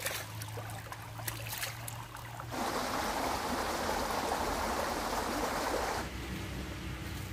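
Shallow stream running and trickling over rocks. The rush of water grows louder from about two and a half seconds in until about six seconds, starting and stopping abruptly.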